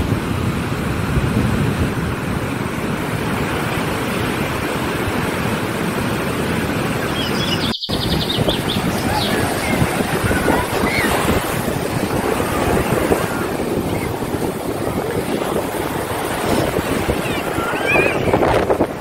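Ocean surf breaking and washing up a sandy beach: a steady rushing noise. It drops out for an instant about eight seconds in, where the recording cuts.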